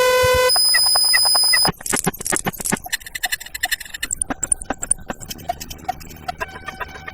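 A quick string of unrelated electronic sound effects: a buzzy beep that cuts off about half a second in, then a high steady tone with short chirps, then a quieter jumble of clicks and short scattered blips.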